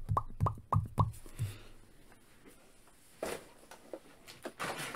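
A man's voice in a quick run of short sounds in the first second and a half, then a quiet room with a few faint taps.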